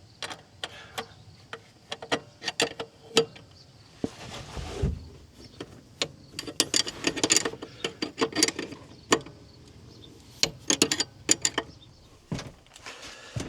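Irregular metallic clicks and clinks of hand wrenches working the lock nuts on a combine's park brake cables, backing them off about a turn, with a dull thump about five seconds in.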